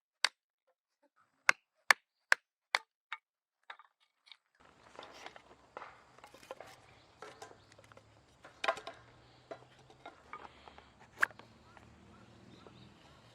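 Repeated sharp chopping strikes, about two or three a second, that stop about four seconds in. Then comes a steady background hum with scattered light knocks and clatter.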